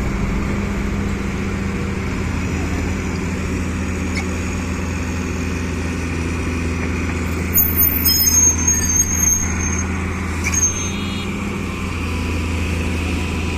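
Excavator's diesel engine running steadily with a low drone, with a short cluster of high-pitched metallic squeals about halfway through.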